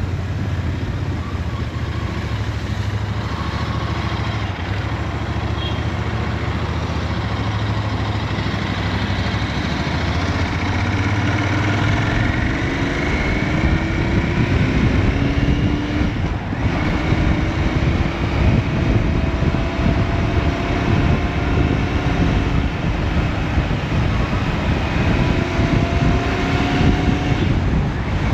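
Royal Enfield Interceptor 650's parallel-twin engine on its stock exhaust, heard from the saddle: a steady low note at slow speed, then, about twelve seconds in, the bike pulls harder and the engine note rises in several pulls through the gears.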